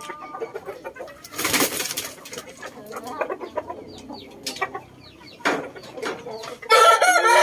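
Shamo gamefowl in a yard: scattered soft bird calls and clicks with a short rustling burst about a second and a half in, then a rooster crows loudly near the end.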